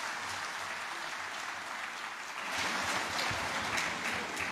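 Large seated audience applauding, a dense steady clapping that swells a little louder about halfway through.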